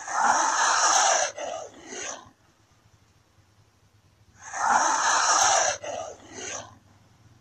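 Komodo dragon hissing: two long, breathy hisses about four seconds apart, each about a second and a half long and followed by two short hisses.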